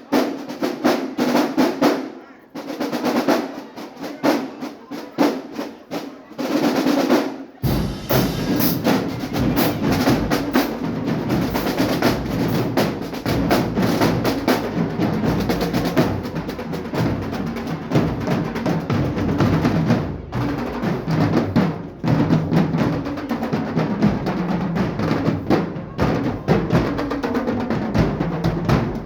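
Marching band drumline playing a fast snare-drum cadence with rolls; about seven and a half seconds in, the full band comes in with bass drums and sustained low, pitched parts and keeps playing.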